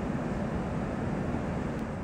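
Steady cabin noise of a Boeing 777-300ER airliner at cruise altitude: a constant low hum of engines and airflow with a softer hiss above it.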